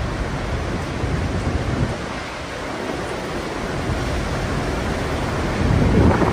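Torrential rain and strong wind in a thunderstorm, a steady rushing noise with a deep rumble beneath it. Near the end it swells into a louder rumble of thunder.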